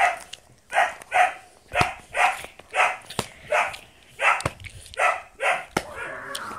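Pet dog barking repeatedly, about two short barks a second, ending in a longer drawn-out sound near the end.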